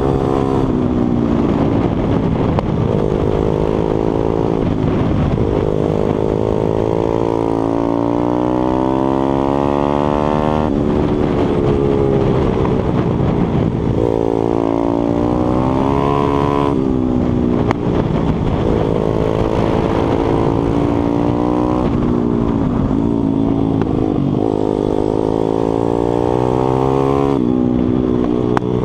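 Stomp 140 pit bike's single-cylinder four-stroke engine at racing speed from on board, the revs repeatedly climbing through the gears and dropping off sharply into corners, with wind rush throughout.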